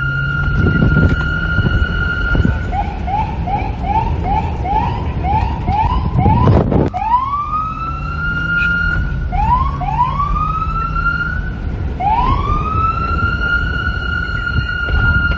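NYPD police car siren. It holds a steady high tone, switches to a fast yelp of about two and a half rising chirps a second, then to slower sweeps that climb and hold the high note. Wind and a low rumble run underneath, with a brief loud rush about seven seconds in.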